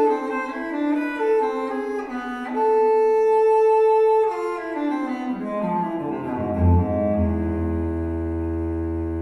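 Solo cello playing a slow melody through B&W 706 S2 speakers driven by a Luxman L-505uX II amplifier. It holds a long high note about three seconds in, then moves down to a deep sustained low note.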